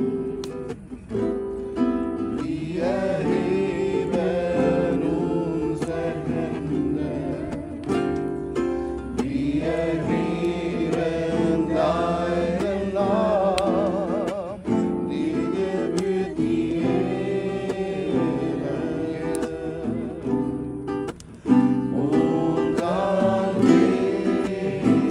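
Group of voices singing a worship song, accompanied by a strummed acoustic guitar.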